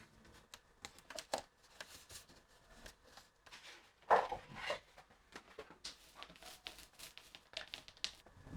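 Scattered light clicks, taps and rustles of objects being handled, with a louder knock and scrape about four seconds in.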